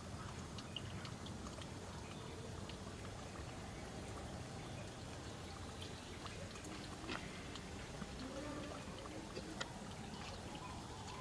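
Steady trickling, water-like background noise with scattered faint clicks and ticks.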